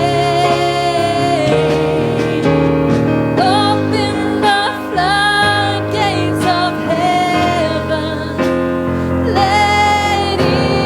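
Gospel music: a singer holding long notes with vibrato over piano or keyboard chords and a steady bass line.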